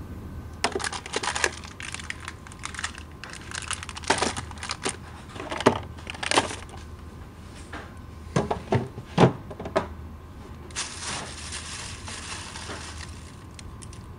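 Rummaging through a refrigerator: plastic bags and food packages crinkling and rustling in irregular bursts, with a few sharper knocks of containers, over a low steady hum.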